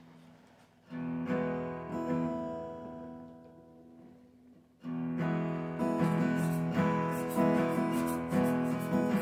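Acoustic guitar: one chord strummed about a second in and left to ring and fade, then steady rhythmic strumming from about five seconds in.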